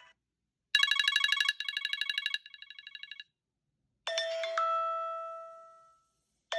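iPhone 8 ringtones playing through the phone's speaker. A rapid electronic trill starts about a second in and drops in loudness twice. After a short pause, a single chime rings out and fades away.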